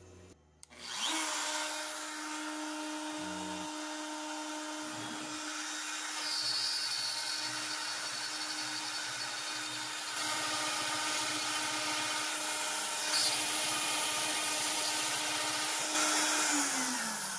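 Makita compact router on a CNC machine boring holes with an eighth-inch bit into an MDF spoil board. It spins up about a second in, runs at a steady speed, and winds down near the end as the bore pass finishes.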